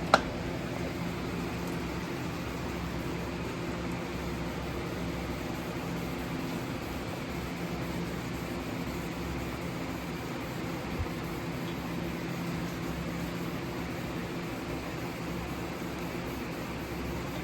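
Steady mechanical hum like a running fan, even throughout, with one sharp click right at the start.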